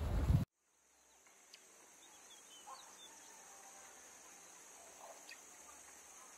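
Wind rumble on the microphone from walking outdoors cuts off abruptly about half a second in. It gives way to quiet shop room tone: a steady high-pitched whine with a few faint short chirps and occasional faint ticks.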